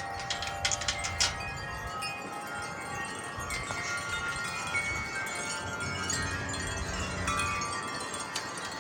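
Wind chimes ringing in the wind: several overlapping, long-held tones, with a cluster of strikes in the first second or so, over a low rumble of wind.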